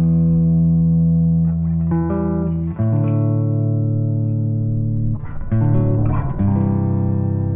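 Background music led by guitar and bass guitar: held notes and chords that change every second or two.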